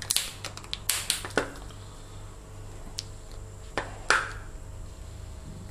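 Clear plastic blister pack crackling and clicking as a two-part glue syringe is pried out of it: a handful of separate sharp crackles, a few of them in quick succession about a second in and again about four seconds in.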